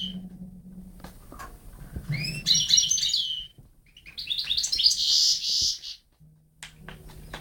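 European goldfinch singing: a bright twittering phrase about two seconds in, then a denser, buzzier run of notes lasting nearly two seconds.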